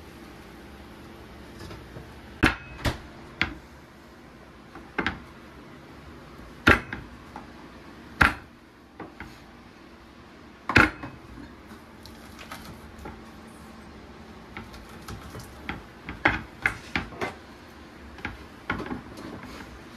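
Kitchen clatter of cookware and utensils: about half a dozen sharp knocks spaced one to two seconds apart, then a run of lighter, quicker taps and clinks near the end, over a steady low hum.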